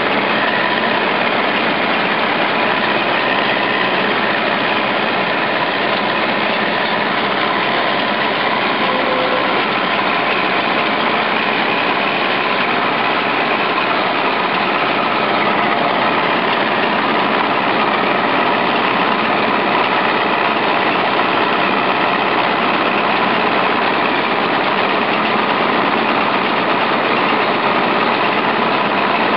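SK-5 Niva combine harvester running steadily while windrowing buckwheat: a loud, constant drone of the engine and the moving header, heard from the cab.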